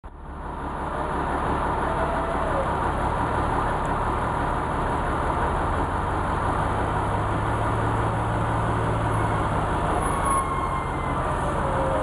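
Diesel engine of a loaded International logging truck running steadily, a low drone that fades in over the first second.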